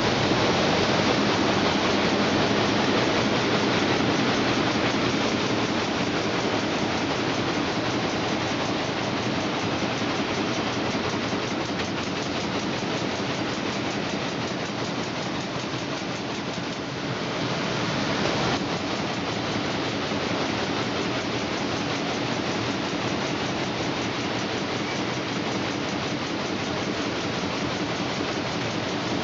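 Wire fan guard inner-ring welding machine running in production: a steady, dense mechanical clatter and hiss that dips briefly and swells again about two-thirds of the way through.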